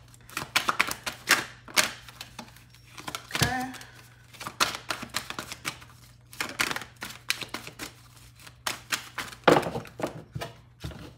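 Deck of tarot cards being shuffled by hand: quick runs of light card clicks and slaps with short pauses between them, loudest near the end.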